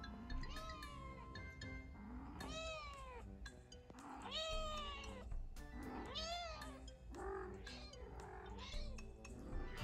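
A long-haired kitten meowing repeatedly, about seven rising-and-falling meows spaced a second or so apart, as she gets excited at bedtime. Background music plays under the meows.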